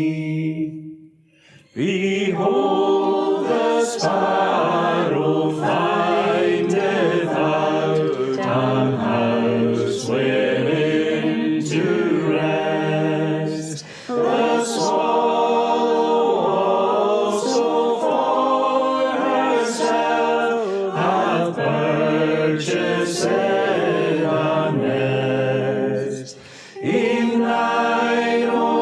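A congregation singing a metrical psalm in unison without accompaniment, in long drawn-out notes. Brief breaks between lines come about a second in, about halfway through and near the end.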